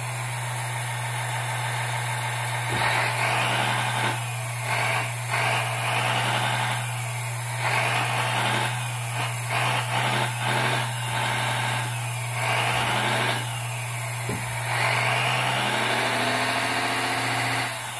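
The hydraulic pump of a 1/14-scale RC hydraulic excavator runs with a steady hum. Its sound swells again and again as the control valves are worked to drive the extended boom down under load, and near the end the pitch rises slowly.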